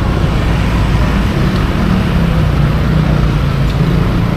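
Street traffic: motorbikes and a songthaew pickup-truck taxi running close by, a steady low engine hum that strengthens from about one and a half seconds in.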